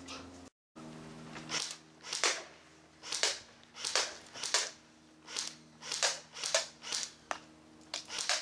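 Thompson M1A1 electric airsoft rifle (AEG) fired in single shots, about eleven sharp reports spaced a little under a second apart, at a can target.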